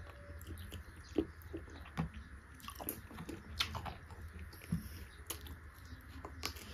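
Close-miked chewing and mouth sounds of someone eating beef curry: irregular wet clicks and smacks, over a steady low hum.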